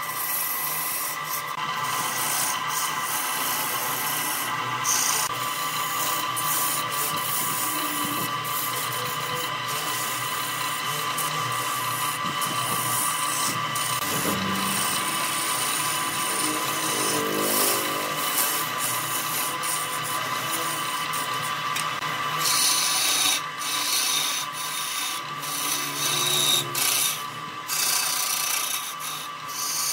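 Electric wood lathe running with a steady whine while a hand-held turning tool cuts into a spinning segmented wooden vase, shearing off shavings. In the last third the cutting gets harsher and comes in uneven bursts.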